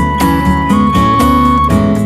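Background music: acoustic guitar strumming chords, with a held melody note that steps up once partway through.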